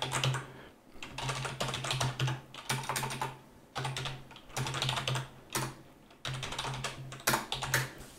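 Computer keyboard being typed on in several quick bursts of keystrokes with short pauses between them, as shell commands are entered.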